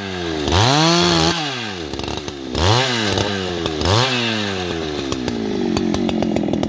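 Husqvarna 281XP two-stroke chainsaw ripping lengthwise along a wooden plank, its engine revving up and falling back several times. Near the end it drops to a low idle.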